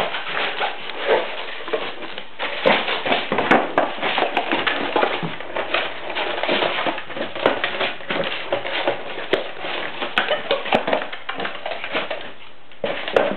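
Pomeranian puppies scuffling over cardboard on a tile floor: a continuous run of quick clicks, crackles and rustles from claws and crumpling cardboard.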